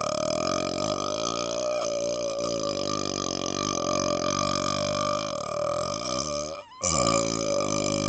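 A man belching one long, drawn-out, low-pitched burp through a wide-open mouth, its pitch wavering as it goes. Near the end it breaks off for a moment and another long burp starts straight away.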